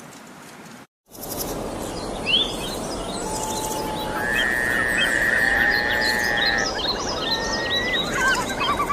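Many birds chirping and calling over a dense, steady outdoor background hiss, starting abruptly after a short break about a second in. A long, steady whistle runs for about two seconds in the middle, among many short rising and falling chirps.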